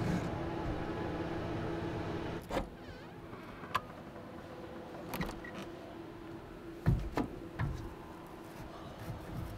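A steady low hum that cuts off abruptly about two and a half seconds in, then a quieter background with several short separate knocks and clicks as a person moves about in a truck camper's open doorway and sits down on its step.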